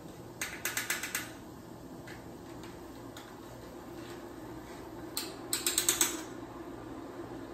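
Two short runs of quick clicks and taps from a metal teaspoon against the bouillon paste jar and the pot, as a teaspoon of Better Than Bouillon base is scooped out and knocked into the water. The first run comes just after the start and the second about five seconds in.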